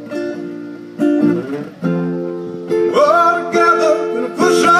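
Acoustic guitar strummed, with a new chord struck about once a second, and a man singing over it from about three seconds in.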